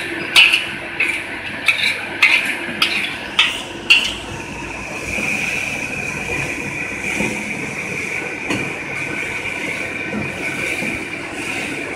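A metal scoop clinking and scraping against a stainless steel popcorn coating drum, about two strokes a second, as caramel-coated popcorn is scooped out. About four seconds in the strokes stop, leaving a steady machine noise with a high whine.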